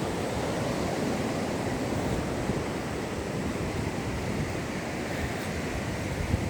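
Ocean surf washing on the beach, a steady rush of noise, with wind buffeting the microphone.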